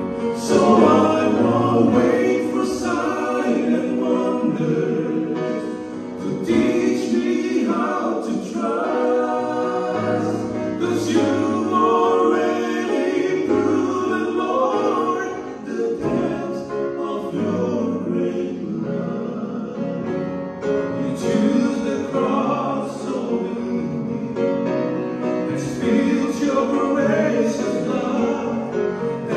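Two men singing a gospel song into microphones, accompanied by a grand piano.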